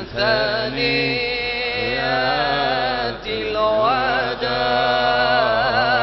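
Devotional chanting sung in long, drawn-out notes with wavering pitch, with a short break about three seconds in.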